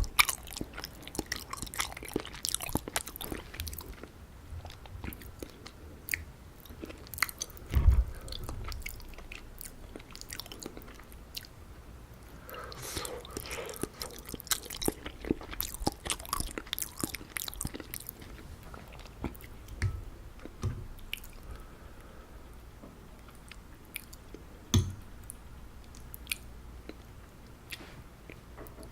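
Close-miked chewing of soft, warm, syrup-soaked gulab jamun: wet, sticky mouth sounds with many small clicks. A few low thumps come near the start, about 8 seconds in and about 25 seconds in.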